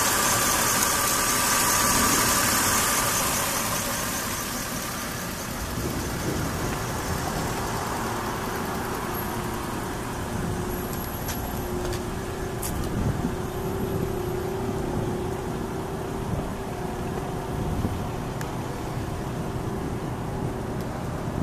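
Toyota Tacoma's 3.4-litre V6 idling steadily, loudest with a hissing whirr for the first few seconds under the open hood, then a quieter, lower rumble from beside the truck. A few faint clicks come about halfway through.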